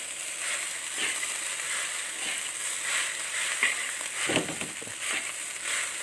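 Fried rice being stir-fried in a wok: a metal spatula scrapes and turns the rice in irregular strokes over a steady frying hiss, with the loudest clatters between three and a half and four and a half seconds in.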